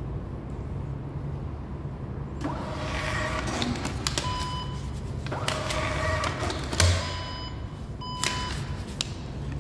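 Thermal receipt printer printing an order ticket, its paper-feed motor buzzing in two spells, about two and a half and about five and a half seconds in, with a knock at the end of the second. Short electronic beeps sound between and after, over a steady low hum.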